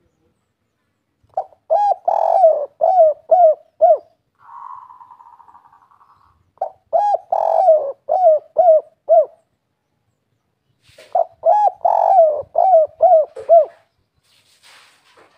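Spotted dove cooing in the 'kuk 3' pattern: three phrases of about six short hooting notes each, coming roughly every five seconds.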